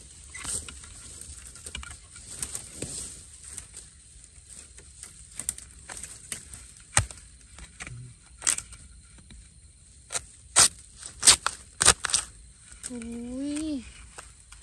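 Long-handled steel digging spade chopping into loose soil and through the base of a wild bamboo shoot: a few scattered sharp chops, then a quick run of about five harder ones over two seconds before the shoot comes free.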